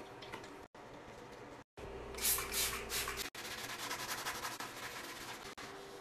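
Scrubbing and wiping inside a porcelain toilet bowl: rough rubbing and scraping strokes, coming in several short stretches that cut off suddenly.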